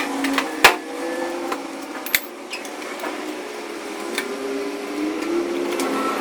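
A few sharp knocks over a steady background hum, the loudest about half a second in and another about two seconds in.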